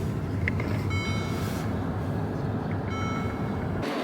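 Steady low road and engine rumble of a car heard from inside while driving, with two brief high tones about two seconds apart. The rumble cuts off suddenly near the end.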